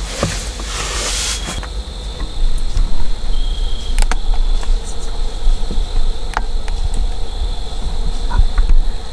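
Insects trilling steadily in woodland in a high, even pitch, over a low rumble. There is a brief rustle in the first second and a few sharp clicks later.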